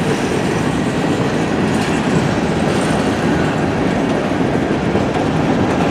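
Freight cars of a long CN freight train rolling past on the rails, a loud, steady noise of wheels on track.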